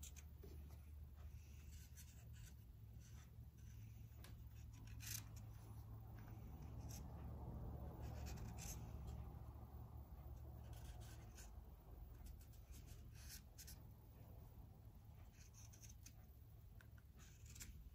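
Faint scratching of a Sharpie permanent marker tracing around the exhaust port openings of a steel gasket onto a cast-iron cylinder head, with a few light clicks. A low steady hum lies underneath.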